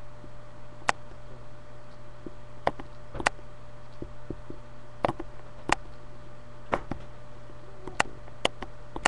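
A steady low hum with about eight sharp clicks at irregular intervals, a few close together.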